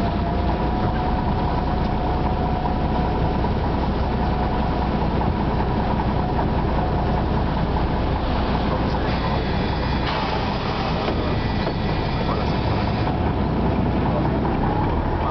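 Ikarus 260 city bus's diesel engine running steadily under way, heard from inside the cabin as a continuous low rumble with road and rattle noise.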